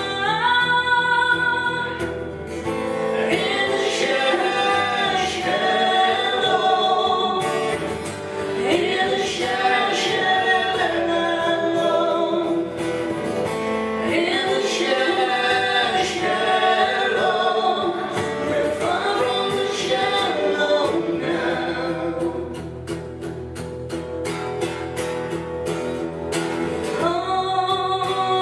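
A female singer performing live with a strummed acoustic guitar, holding long sung notes that bend in pitch. Between about two-thirds of the way in and near the end, the voice drops back and the guitar strumming comes forward, before the singing swells again.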